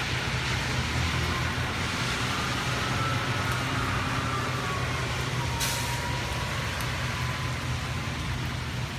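Traffic noise: a vehicle's engine running steadily under a thin whine that slides down in pitch, with a short hiss a little past halfway.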